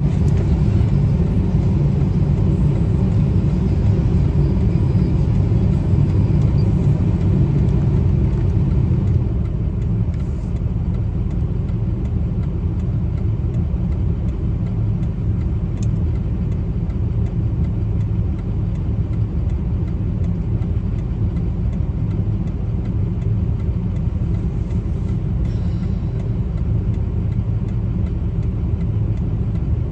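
Steady low rumble of a car's interior, engine and road noise heard from inside the cabin, easing slightly about nine seconds in.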